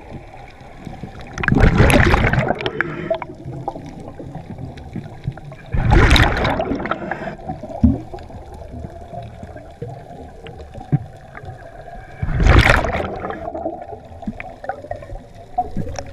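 Scuba diver's exhaled breath bubbling out of a regulator underwater: three gurgling bursts of bubbles, each about a second long and several seconds apart, with faint clicking and underwater hiss in between.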